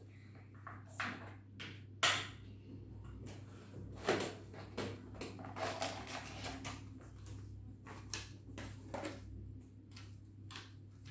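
A makeup case and its palettes being handled: a string of irregular clicks, taps and knocks, the sharpest about two seconds in and a busy patch in the middle. A low steady hum sits underneath.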